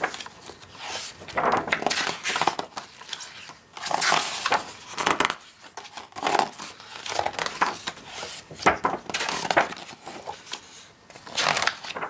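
Pages of a thick hardcover art book being turned by hand: repeated paper rustles and swishes, one every second or two at an uneven pace.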